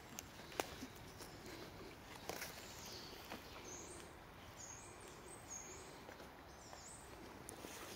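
Faint, scattered footsteps over quiet ambient hiss, with a few short high bird chirps around the middle.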